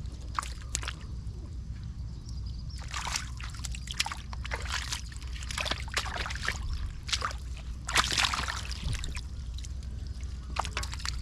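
Shallow water in a flooded field splashing and sloshing in quick, irregular bursts as fish are caught by hand, over a steady low rumble.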